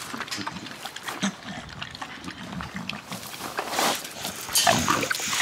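American Bully dogs eating from a feeder bowl: irregular chewing and smacking sounds, louder near the end.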